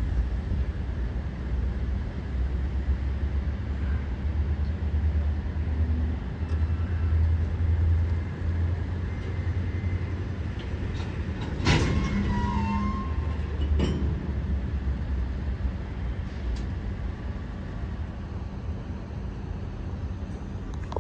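Diesel locomotive of a CSX local freight rumbling during switching moves. A sharp bang comes about halfway through, with a brief squeal after it, and a smaller bang follows about two seconds later.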